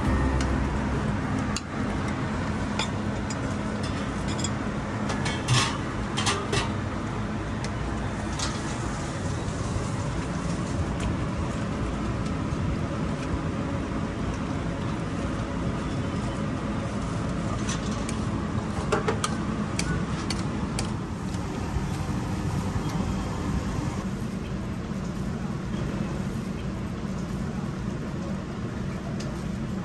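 Noodle stall kitchen ambience: a steady low hum and rumble with faint voices, and a few sharp clinks of ladle and bowls as noodles are dished up.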